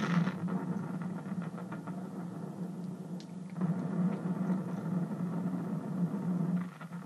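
Small electric motor of a toy train running with a steady hum, with light clicking in the first few seconds.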